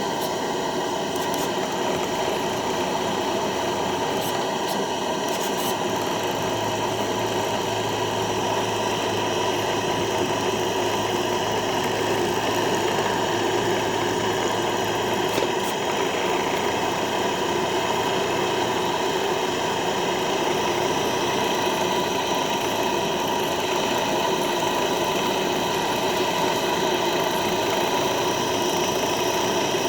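KACIO LS2-14 two-cylinder reciprocating model steam engine running steadily. A low hum joins in about six seconds in and drops away around fifteen seconds.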